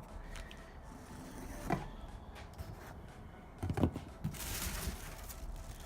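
Unpacking handling noises from a cardboard wheel box: a knock, then a few more knocks about four seconds in, followed by a brief rustle of packing.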